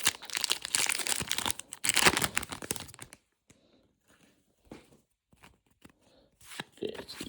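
Foil Pokémon booster pack wrapper crinkling and tearing open for about three seconds, then faint scattered rustles.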